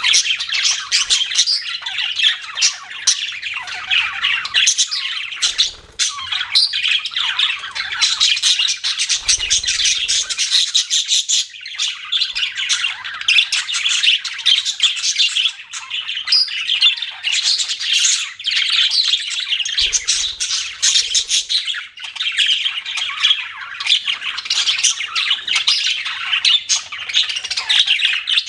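Budgerigars chirping and chattering non-stop, with rapid, overlapping high-pitched squawks and warbles.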